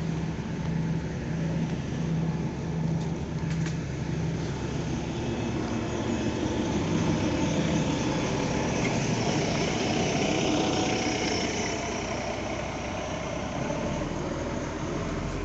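Bus engine running as the bus moves off, with a low tone pulsing on and off for the first five seconds or so; the engine and road noise then swell to a peak about ten seconds in and ease off.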